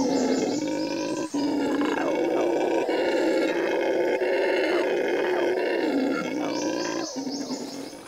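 Red howler monkeys howling together, a loud, sustained chorus of deep territorial calls that stops about a second before the end.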